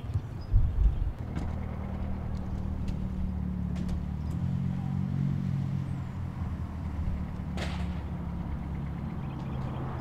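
A motor vehicle engine running steadily at idle, a low even hum. Wind gusts buffet the microphone about half a second in.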